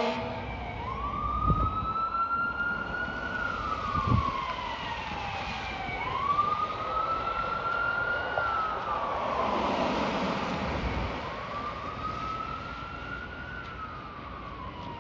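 Fire truck siren in a slow wail. The pitch sweeps up, then sinks slowly, about every five seconds, for three cycles. The truck's engine and road noise run underneath.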